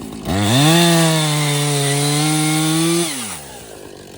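Chainsaw engine revved up to full throttle about a quarter second in, held at a steady high pitch for nearly three seconds, then let back down to idle.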